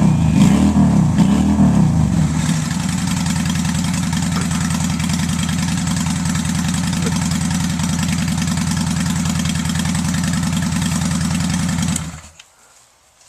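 Honda bobber motorcycle engine breathing through Harley-Davidson mufflers, loud. It is revved for the first couple of seconds, settles to a steady idle, and is switched off about twelve seconds in.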